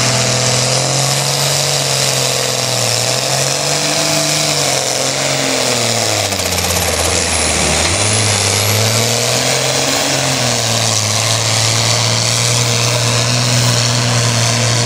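Oliver 1750 tractor's six-cylinder diesel engine running flat out under load, dragging a weight-transfer sled. Its pitch sags about five seconds in as the load bogs it down, climbs back a few seconds later, then holds steady.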